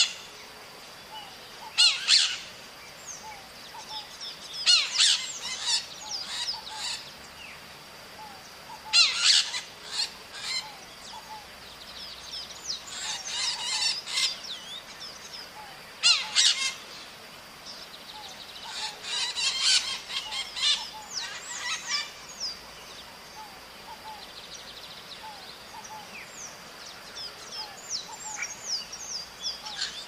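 Maritacas (green parakeets) screeching in harsh clusters of calls every few seconds, with softer chattering between them that thins out toward the end. A faint steady high-pitched tone runs underneath.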